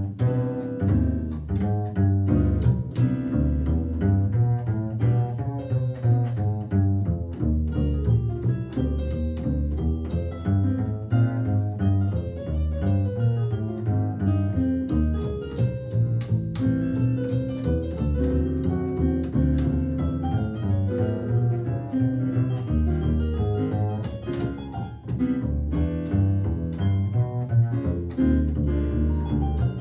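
Instrumental jazz with a prominent plucked bass line under busy, quick notes.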